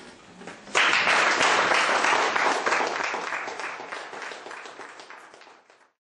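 Audience applauding. The clapping starts suddenly about a second in, is loudest at first, then slowly fades and cuts off abruptly near the end.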